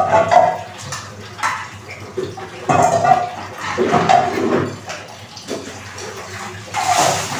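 Water splashing and pouring as metal pots and plastic basins are washed and rinsed by hand, in uneven bursts with occasional knocks of the pans.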